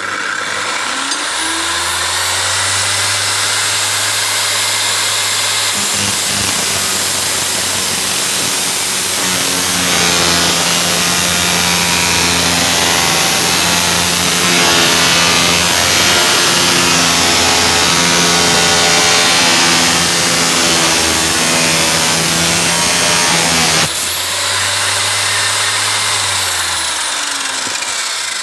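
Cut-off saw motor starting and running up to speed, then loaded for about eighteen seconds as it cuts through a workpiece, its tone wavering under the load. After that it runs free again and begins to wind down near the end.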